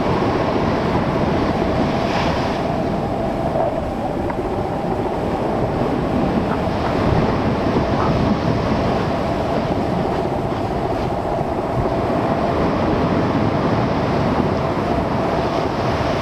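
Strong wind blowing across the microphone as a steady low rumble, over storm waves breaking and splashing against a rocky seawall shore.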